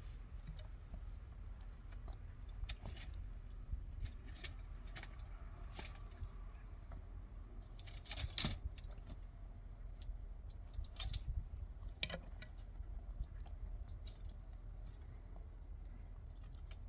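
Scattered light clicks and clinks, like small hard objects being handled, with the loudest cluster about eight seconds in, over a steady low hum.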